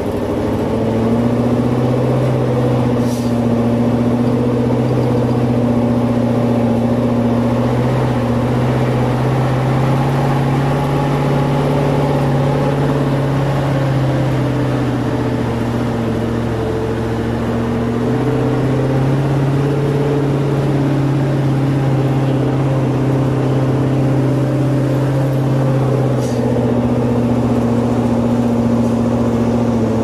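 Nissan V8 engine of an overloaded 6x6 logging truck running steadily under load. Its pitch dips and rises again midway and drops once more near the end.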